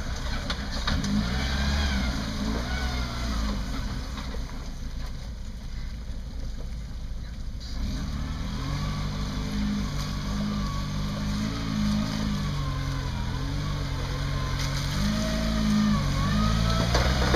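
Suzuki Samurai's engine working at low revs as the truck crawls through deep mud, its pitch rising and falling with the throttle. It is softer for a few seconds partway through and pulls harder from about halfway on.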